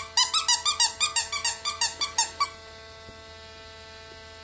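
Squeaky dog toy squeezed rapidly, about six high squeaks a second for roughly two and a half seconds, then stopping.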